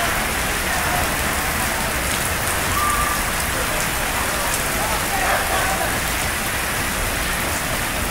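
Torrential rain pouring onto a flooded paved street in a steady, unbroken downpour.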